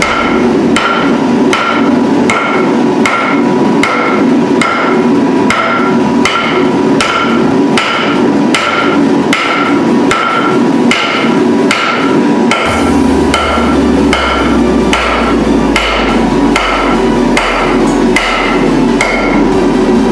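Hand hammer forging a red-hot steel torsion bar on a round steel plate used as an anvil: steady, evenly spaced blows, about one and a half a second, each with a short metallic ring, over a steady background rush.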